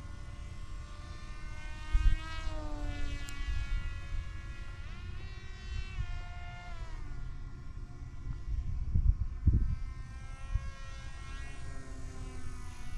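Small electric RC foam plane's brushless T-Motor F40 drone motor and 6x5 propeller whining as it flies, the pitch rising and falling with throttle and passes. Low gusts of wind buffet the microphone about two seconds in and again around nine seconds.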